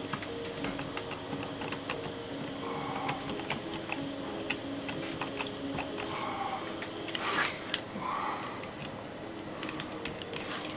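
Irregular small clicks and taps of tools on metal screw-barrel butt connectors, with a few brief scraping rustles, as heavy 2-gauge wire is fitted and the connector screws are tightened down.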